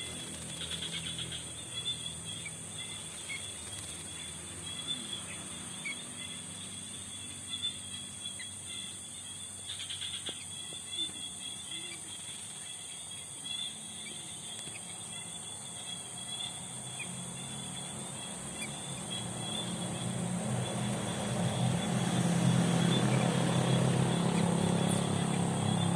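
Steady shrill chirring of crickets or other insects, with a few faint ticks. A low hum swells in over the last several seconds and becomes the loudest sound.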